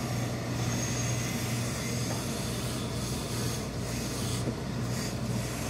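Industrial hose-fed steam iron being worked over wool suit trousers: a steady hiss of steam with the rub of the iron's sole on the cloth, over a constant low hum.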